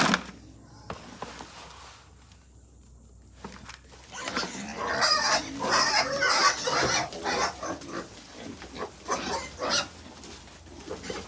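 A sharp knock at the very start. About four seconds in, farm animals break into a dense burst of short grunting and squealing calls, which thin to scattered calls near the end.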